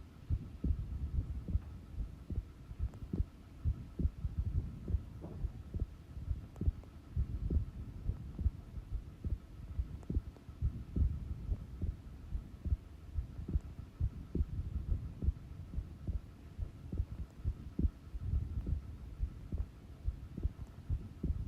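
Human heart beating slowly at rest: a continuous run of low, dull thumps, with a faint steady hum underneath.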